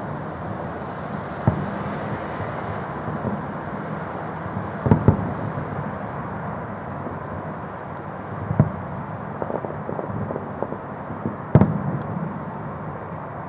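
Fireworks salute going off: sharp bangs every few seconds, a quick pair about five seconds in and the loudest about two seconds before the end, with smaller cracks between, over a steady background noise.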